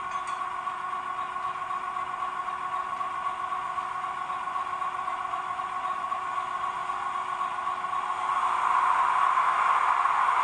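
A Brawa H0 model of the East German E42 electric locomotive plays its standstill sound through its small onboard speaker: a steady electric hum and hiss with a few held tones. It grows louder about eight seconds in.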